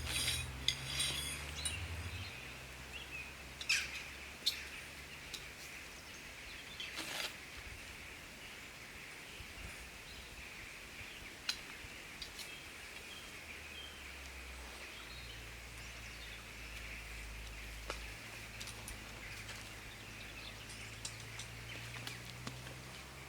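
Campfire crackling, with scattered sharp pops and snaps over a steady high-pitched background drone.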